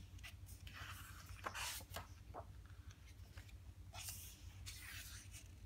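Faint rustling of a hand brushing over the glossy pages of a large photo book, twice, with a couple of soft taps between, over a low steady hum.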